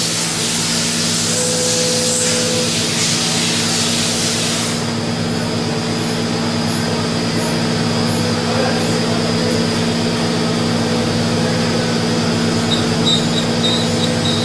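Mazak VTC 300C CNC vertical machining center running with a steady hum. A hissing spray stops about five seconds in, leaving the machine's hum alone.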